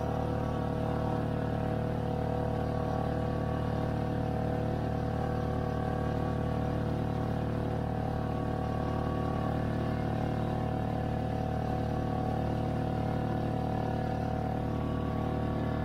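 A boat's engine running steadily at cruising speed, a constant low drone with several steady tones above it, as the boat motors along at about five knots.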